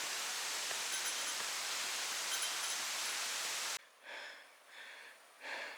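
A steady rushing noise cuts off abruptly about four seconds in. It gives way to a hiker's heavy, labored breathing, a breath roughly every two-thirds of a second.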